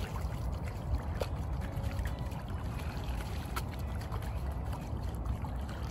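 Lake water sloshing and splashing as a zipped mesh pellet wetter full of worms is swished about in the shallows to wash the peat off them, over a steady low rumble.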